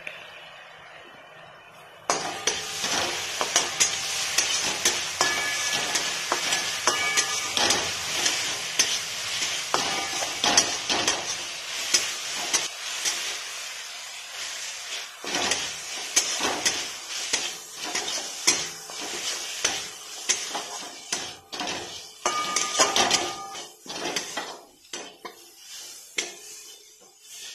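Chillies, garlic and soy sauce sizzling in a hot wok while a flat metal spatula stirs and scrapes, with frequent clinks of metal on metal. The sizzle starts suddenly about two seconds in and grows sparser near the end.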